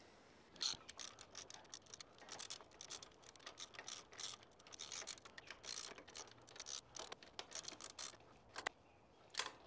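A spanner tightening the nut on an awning bracket bolt: faint quick runs of metal clicks and scrapes, stopping about 8 seconds in, with one last click near the end.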